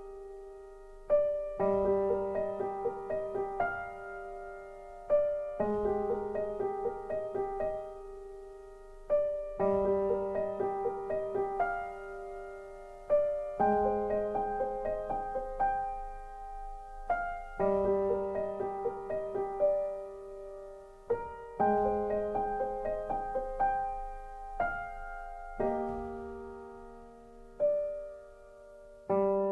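Background music: a slow, gentle solo piano piece, with new chords struck about every four seconds and left to ring and fade.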